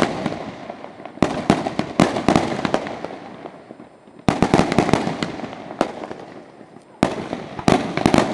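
Strings of firecrackers going off in rapid crackling volleys, a fresh volley starting about every three seconds and each one dying away.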